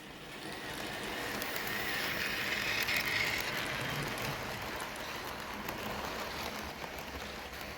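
OO gauge model locomotives running on the layout's track, their motors whirring and wheels clattering on the rails. The sound grows louder to a peak about three seconds in, then fades as the train moves on.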